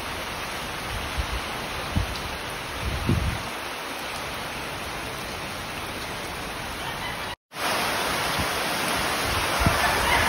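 Heavy typhoon rain pouring steadily, with gusts of wind buffeting the microphone now and then. The sound cuts out briefly about seven seconds in and comes back louder.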